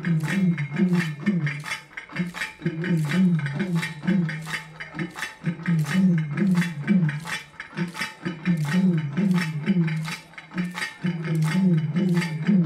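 Dancers' metal ankle bells jingling in a steady rhythm, about two strokes a second, in time with the dance steps. Under them runs a low melodic phrase that repeats every second or two.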